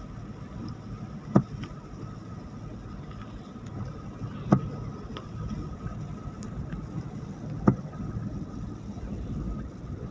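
Steady car-cabin road and engine noise on a wet road, with a sharp knock about every three seconds, three in all, from the windshield wipers sweeping on the intermittent setting.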